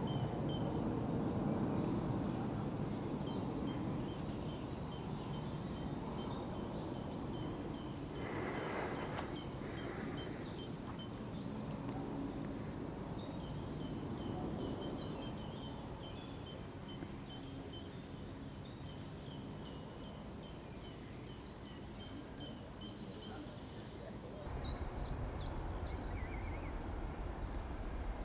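Small birds chirping repeatedly in quick high phrases over a steady low background rumble; the rumble grows louder near the end.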